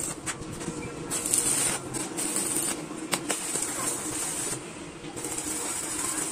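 Stick-welding arc crackling and hissing on a square steel-tube frame, in several bursts a second or two long with short breaks between as the arc is struck and broken.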